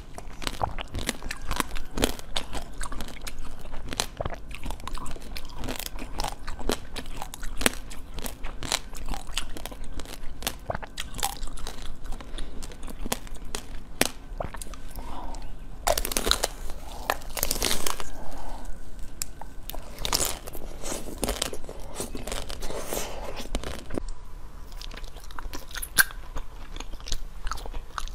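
Close-miked eating: a crunchy food bitten and chewed, with many sharp crackling snaps and a few louder stretches of chewing about two-thirds of the way through.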